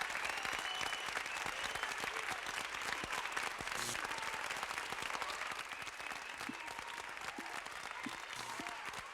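Crowd applauding, a dense steady patter of many hands clapping, with faint voices in the crowd.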